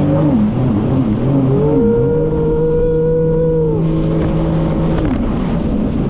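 Jet ski engine running hard, its pitch rising and falling in quick waves, then holding a steady high note for about three seconds before wavering again.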